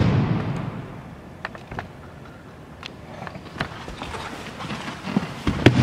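Footsteps and scattered light knocks on a wooden sports-hall floor, after a low thud that fades out over about the first second; a louder knock comes near the end.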